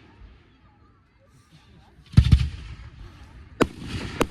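Fireworks going off: a deep boom about two seconds in, trailing into crackling, then two sharp bangs close together near the end.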